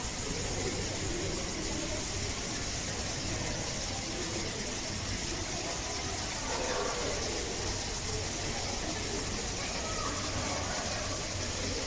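Steady background ambience: faint, indistinct murmur of distant voices over an even hiss and a low hum.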